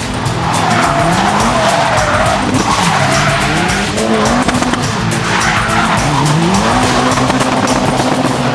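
A car drifting and fishtailing: the engine revs up and down several times while the tyres squeal and skid continuously in long slides.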